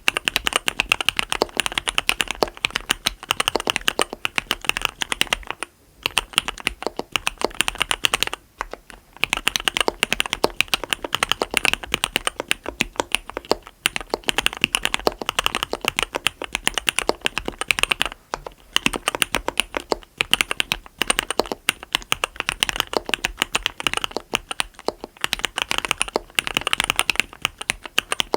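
Typing on a mechanical keyboard with Cherry RGB Black linear switches on 55 g progressive springs, a SUS304 stainless steel plate and Leopold keycaps. Fast runs of keystrokes are broken by short pauses every few seconds.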